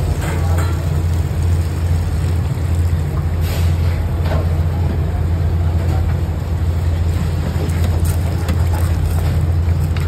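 Steady low mechanical hum of kitchen machinery, even and unbroken, with faint scrapes and taps of a wooden spatula stirring macaroni in a non-stick pan.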